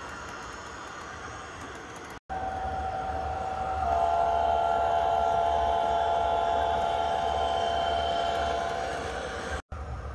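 Model diesel locomotive's sound system blowing a multi-chime air horn, held for about five seconds over a low prime-mover rumble. One note comes in first and the full chord joins about four seconds in. The sound cuts out abruptly twice, once just before the horn and once after it.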